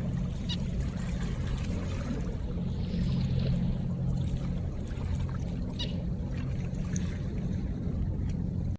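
River water pouring and trickling, with a steady low hum underneath and a few brief high ticks. The sound stops abruptly near the end.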